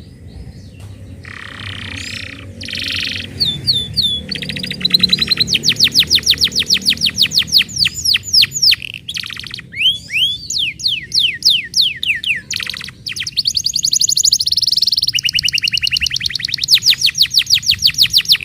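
Domestic canary singing a long, loud song of fast trills and rapid runs of repeated and sliding notes, with a few short breaks. It is the kind of song played to prompt other canaries to sing.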